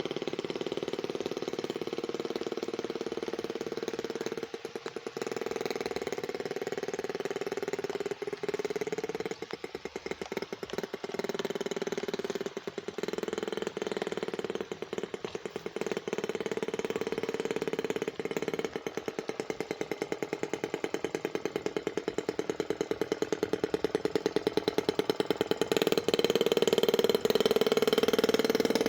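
Small gas engine of a radio-controlled model boat running, its pitch wavering and rising toward the end, with several brief dips in level along the way.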